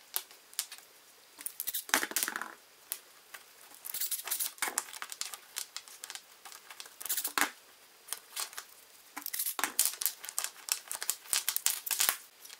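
Thin plywood pieces clicking and scraping against each other as they are handled and stacked onto a bolt, in irregular bursts of clatter with short pauses.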